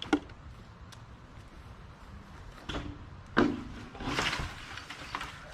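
Excavator engine running low and steady, with a few sharp knocks and clunks: three single knocks and a short rattling stretch near the end.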